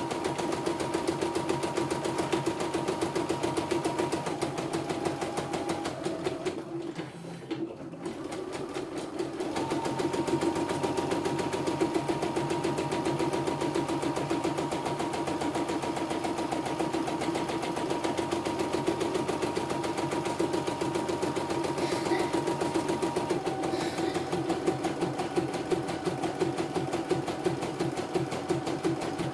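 CNY E960 computerised embroidery machine stitching out a design in its hoop, its needle mechanism running in a fast, even rhythm with a steady hum. The stitching stops for about two seconds roughly a quarter of the way in, then carries on.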